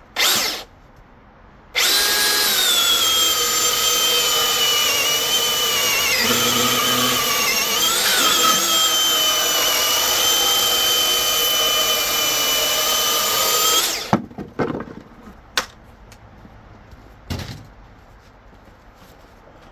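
Milwaukee M18 dual-battery chainsaw with a .325 Frostbite chain cutting hardwood: a short blip of the trigger, then a steady motor whine for about twelve seconds whose pitch sags briefly under load midway, stopping abruptly. A few knocks follow.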